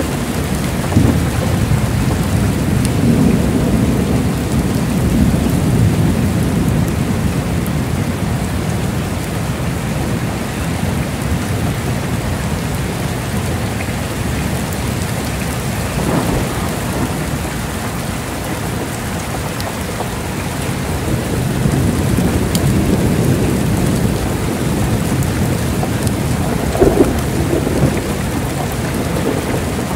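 Heavy rain falling steadily, with thunder: low rolling rumbles swell near the start and again past the middle, and a few sharper claps come about halfway and near the end.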